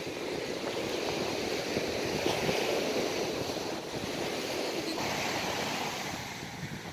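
Steady wash of sea surf breaking on the beach.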